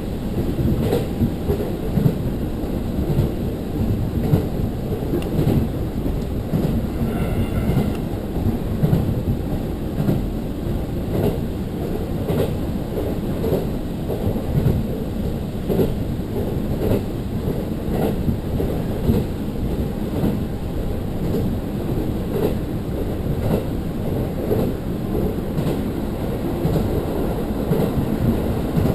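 Diesel railcar running along the line, heard from inside the cabin: a steady low rumble of engine and wheels on the rails with irregular knocks from the track. A brief high tone sounds about seven seconds in.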